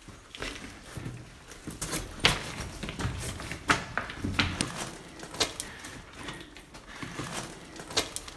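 Footsteps crunching and scraping on gravel and loose rock, an irregular run of sharp steps.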